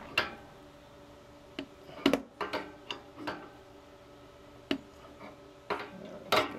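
Adjustable wrench clicking and clinking against a brass fitting on a propane tank valve as it is turned and repositioned to tighten the taped connection. The sharp metallic clicks are irregularly spaced, each with a brief ring, and the loudest comes near the end.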